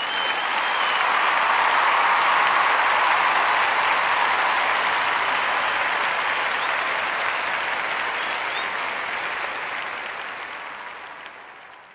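Crowd applause, a dense even clapping that swells up over the first couple of seconds and then slowly fades away.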